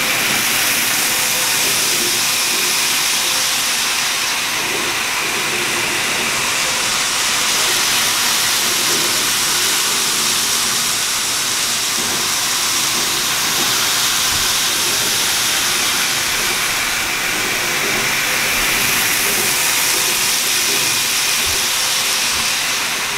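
Steady hissing train running noise with a faint high whine, swelling and easing slowly.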